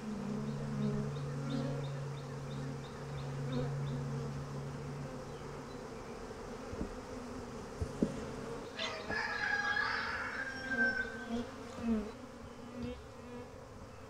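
A swarm of honey bees buzzing loudly around an open hive box, a steady hum from a colony that is a little testy after being shaken in. A couple of sharp knocks from the hive equipment come about seven and eight seconds in, and a bird calls for a couple of seconds about nine seconds in.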